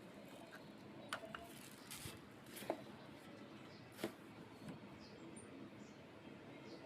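A few short, sharp clicks and taps, spaced irregularly, over a faint background hiss.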